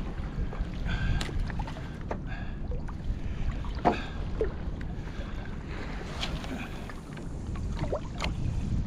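Wind rumbling on the microphone over water lapping against a sea kayak's hull, with a few faint knocks.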